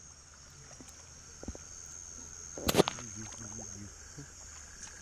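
Shallow rice-paddy water splashing once, sharp and loud, a little over halfway through, from wading and eel catching. A steady high-pitched drone of night insects runs underneath.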